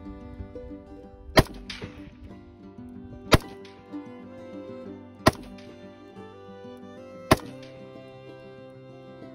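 Background music with five sharp, loud bangs about two seconds apart.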